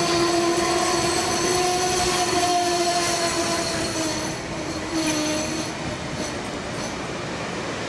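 Stainless-steel passenger coaches of a train passing close at speed: a steady rush of wheels on rail, with a ringing tone that slowly sinks a little in pitch. The noise eases somewhat about halfway through.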